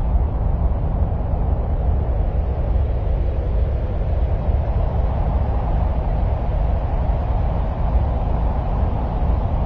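Steady, unchanging rumbling noise, deep and dull with no distinct events: an ambient noise track billed as the sound of Mars.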